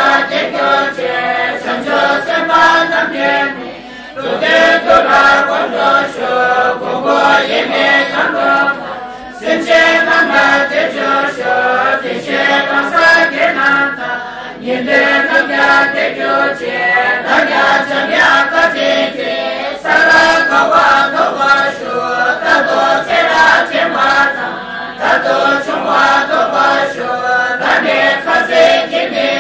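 Group of Tibetan women chanting prayers in unison, read from prayer texts, as a steady rhythmic recitation. It breaks for a breath about every five seconds.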